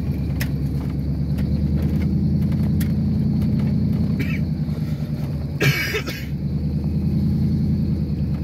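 Pickup truck engine and tyres droning steadily, heard from inside the cab while driving on a dirt road. A short loud burst of noise comes just under six seconds in.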